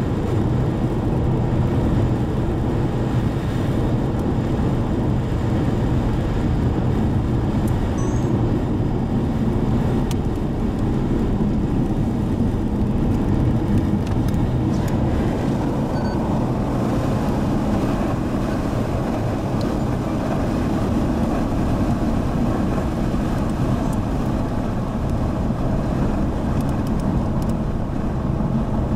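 Steady engine and tyre drone of a car driving on a paved road, heard from inside the cabin.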